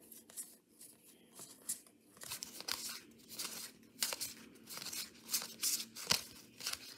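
Stack of Topps baseball cards being thumbed through one at a time: the cardstock cards slide and flick against each other in short, irregular swishes, coming faster after about two seconds.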